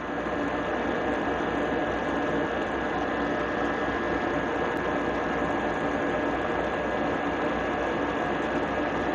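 Water rushing through a partly closed ball valve and venturi injector as the valve is turned to throttle the motive flow: a steady turbulent rush with a fast rattle and a faint steady high tone, growing louder just at the start and then holding even.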